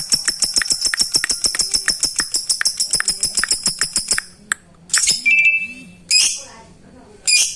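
Lovebird 'ngetik' call to a rival: a fast run of sharp, high ticking chirps, about ten a second, that stops about four seconds in. It is followed by three short, shrill screeches.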